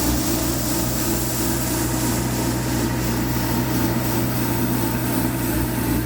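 Kubota F3060 tractor's engine running steadily under load, driving the front rotary broom through its repaired driveline, with a steady hiss from the spinning brushes over the engine hum. The broom working shows the homemade driveline fix is holding.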